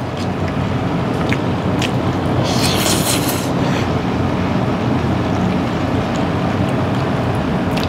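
Steady rumbling background noise of a restaurant dining room, with a few light clicks and a brief hissy rustle about two and a half seconds in.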